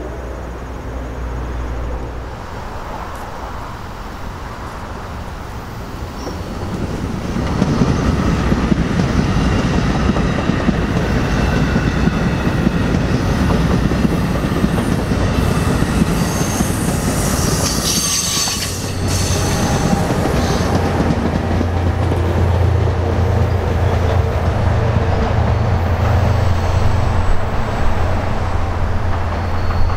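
NJ Transit commuter train of multilevel coaches passing close by, its rolling rumble building for the first several seconds and then staying loud, with wheels clattering over the rails and a brief high wheel squeal past the middle. In the last third the trailing Bombardier ALP45DP locomotive goes by, and a steady low engine hum joins the rumble.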